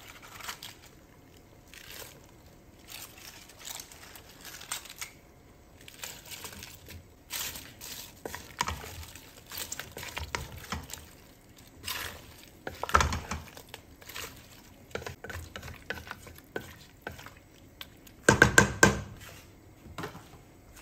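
A wooden spatula stirring and pressing cabbage leaves down into a stainless steel pot of broth: the leaves crunch and rustle, with scrapes and knocks against the pot. A louder burst of knocks comes near the end.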